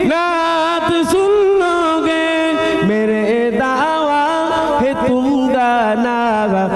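A man singing an Urdu naat (a devotional song in praise of the Prophet) without instruments, drawing out long held notes with wavering ornaments. About three seconds in he steps down to a lower held note.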